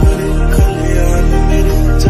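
Background music: sustained notes over deep bass hits that slide down in pitch, twice in the first second.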